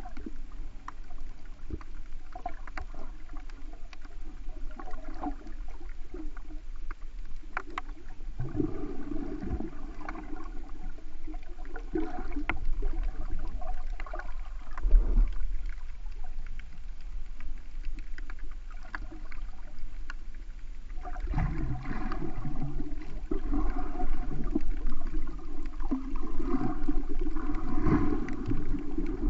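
Muffled underwater water noise picked up by a GoPro in its waterproof housing: sloshing and gurgling with scattered faint clicks, growing louder for a few seconds about a third of the way in and again over the last third.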